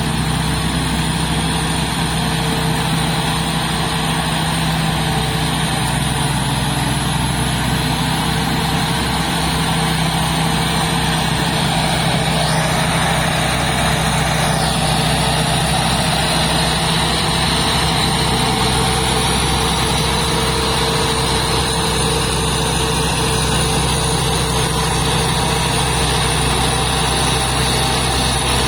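Large rice combine harvester's diesel engine running steadily, with a high steady whine over the engine note.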